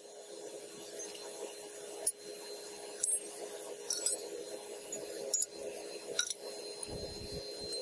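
Scrap brass fittings (old taps and pipe pieces) dropped one at a time into a crucible, clinking sharply about five times. A steady hum runs underneath.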